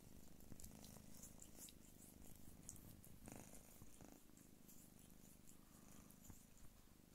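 Faint, steady purring of Don Sphynx cats, the mother and her nursing kittens, with light soft clicks scattered through it.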